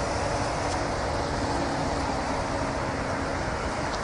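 Steady wind blowing across the microphone, with a low buffeting rumble under an even rushing noise.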